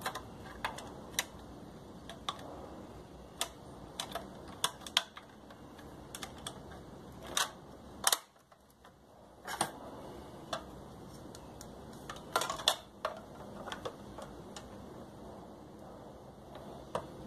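Irregular plastic clicks and knocks as the white plastic casing of a Lorenzetti Acqua Ultra electric shower is handled, turned over and snapped together, with a break of about a second and a half in the sound about halfway through.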